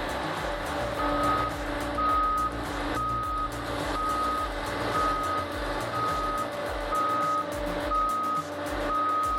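A heavy machine's reversing alarm beeping about once a second, each beep about half a second long and at one steady pitch, starting about a second in, over the steady running of its diesel engine.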